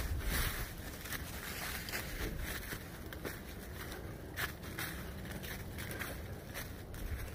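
Footsteps on dry fallen leaves at a walking pace, each step a short rustling crunch, over a steady low rumble on the microphone.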